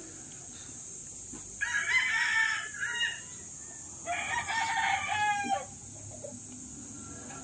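Rooster crowing twice, each crow lasting about a second and a half: the first starts about a second and a half in, the second about four seconds in. A steady faint high hiss runs underneath.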